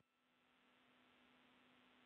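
Near silence: faint room tone with a faint steady hum.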